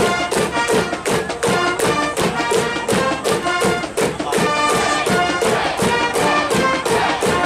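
A high school brass band in the stands playing a cheering tune: sustained horn notes over a steady, even drum beat.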